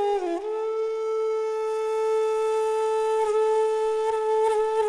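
Background music: a flute-like wind instrument ends a falling phrase and then holds one long, steady note.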